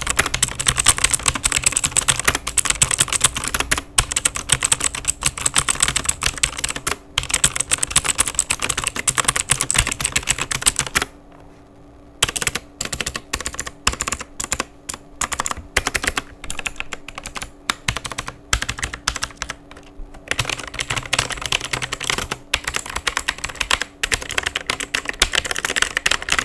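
Typing on a Rexus Legionnaire MX 3.2 mechanical keyboard with clicky, tactile blue switches. Fast continuous clicking thins out about eleven seconds in to slower, separate key presses, then turns fast again for the last six seconds.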